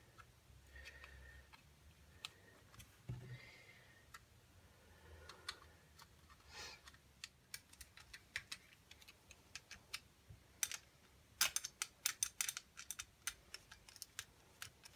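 Small sharp clicks and taps of a screwdriver and plastic parts as the small motor is fitted back into the plastic housing of an LED disco bulb. The clicks come in a quick, dense run near the end.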